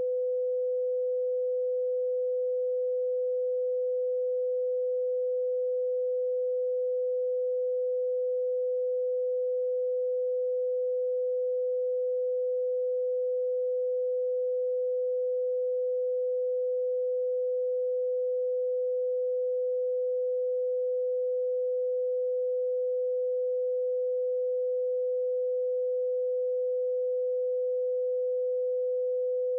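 Steady pure test tone: one unchanging mid-pitched note, unbroken and at constant level throughout.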